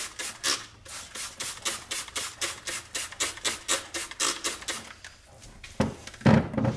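Trigger spray bottle of Windex pumped rapidly, a steady run of short spray hisses about four a second, neutralizing ferric chloride on an etched blade. Near the end the strokes stop and there is a louder knock as the bottle is set down in the plastic sink.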